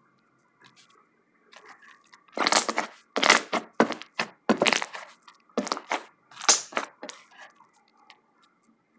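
Fluffy slime being squeezed and pressed by hand, giving about six loud crackling bursts as trapped air pops, roughly one a second, starting a couple of seconds in.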